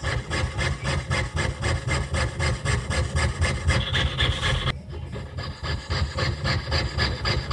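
Jeweler's saw blade rasping back and forth through a Susan B. Anthony dollar in quick, even strokes, about five a second, as a puzzle piece is hand-cut. About five seconds in there is a sharp tick and a half-second pause before the strokes resume.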